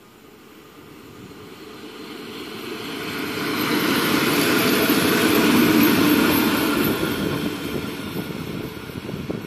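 Two coupled electric locomotives, DB class 151 type, passing close by at speed: wheel and motor rumble with a hiss above it swells as they approach, is loudest about halfway through, then fades as they draw away.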